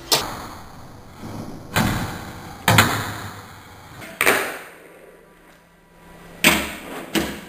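A fingerboard clacking onto a toy stair set and table: about six sharp clacks a second or two apart, most followed by a short rolling noise that fades out.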